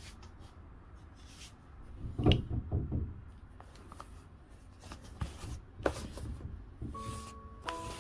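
Hands handling an album package: rustling with a burst of knocks and rubbing about two seconds in and a few sharp clicks later. Soft background music with held notes comes in near the end.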